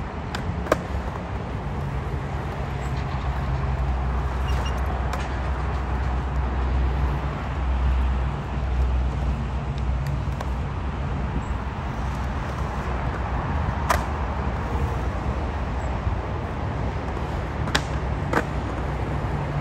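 Skateboard's urethane wheels rolling over a concrete bowl and ramps, a steady rumble. A few sharp clacks of the board and trucks striking concrete come once early and then three times near the end.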